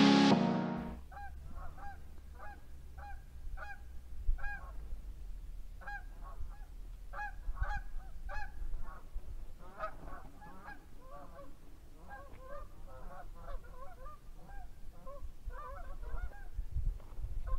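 Geese honking: single calls about twice a second at first, then many overlapping calls from about ten seconds in as more birds join.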